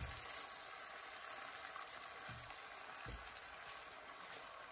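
Onions, garlic and green chillies sizzling quietly in oil with a little added water in a nonstick frying pan, with a few faint soft knocks as a wooden spatula stirs them.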